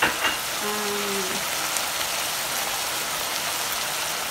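Shawarma meat, onion and green bell pepper sizzling steadily in a pot, the cooking water nearly boiled off, with two sharp clicks at the very start.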